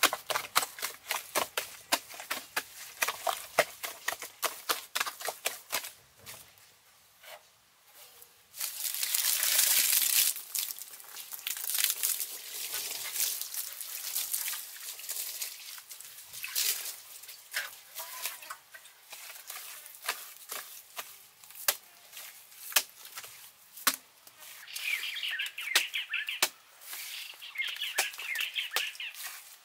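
Wet sandy mud being trodden underfoot and worked by hand in a pit: rapid squelching and slapping, with a louder rushing noise for a couple of seconds about nine seconds in.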